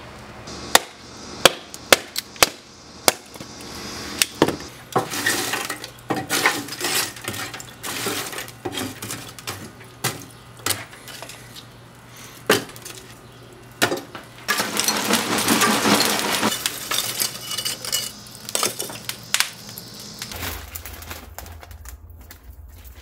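Lump charcoal in a Big Green Egg kamado firebox clinking and cracking as the fire is lit and tended: sharp glassy knocks, with a denser stretch of rattling about fifteen seconds in. Near the end it gives way to a quiet low hum.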